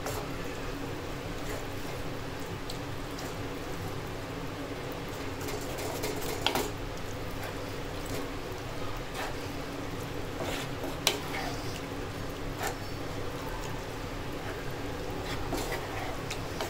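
Chicken kheema with added water simmering in a frying pan, a steady wet bubbling and sizzling, with a spatula scraping and knocking against the pan a few times.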